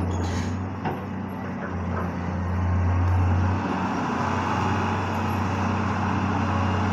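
Kobelco long-reach excavator's diesel engine running with a steady low drone as the machine works, a little louder about three seconds in.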